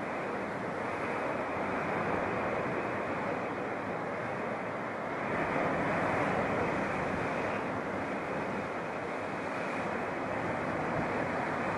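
Sea waves breaking on a rocky shore: a continuous wash of surf that swells louder about six seconds in.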